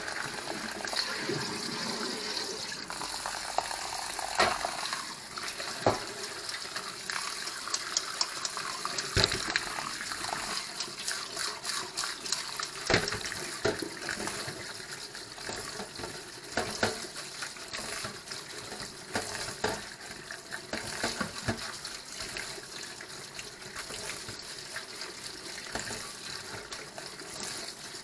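Tap water running steadily into a stainless steel sink while boiled noodles are rinsed and rubbed by hand in a metal colander, with scattered short knocks and clinks.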